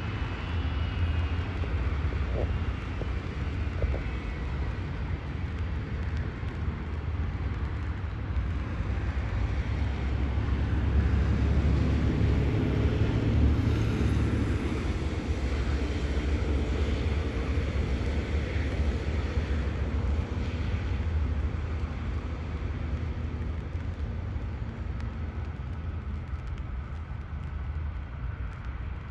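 Boeing C-17 Globemaster III's four turbofan engines running with a deep rumble and a hiss, growing louder to a peak about halfway through and then slowly easing off.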